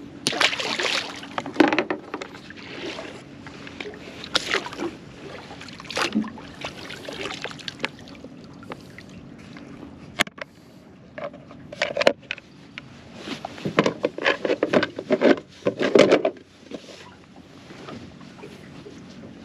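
Water splashing and lapping against an aluminum boat hull, with scattered knocks and clatter as a plastic fish measuring board is handled.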